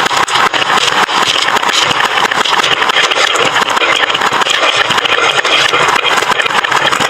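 Many marbles rolling and clattering down a wooden marble-run slope: a continuous, dense rattle of small clicks.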